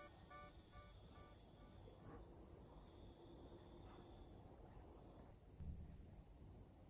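Near silence: faint room tone. The fading tail of background music, a few repeating notes, dies away in the first second, and a faint low thump comes about five and a half seconds in.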